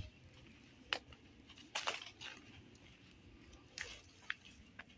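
Footsteps crunching on a trail: a few sharp, separate crunches, roughly one every second or so, over faint background.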